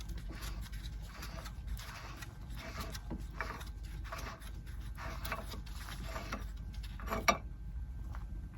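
Metal-on-metal handling at a wheel hub as a large axle nut is worked off with a socket and ratchet: irregular scraping and rubbing, with one sharp clink about seven seconds in, over a steady low rumble.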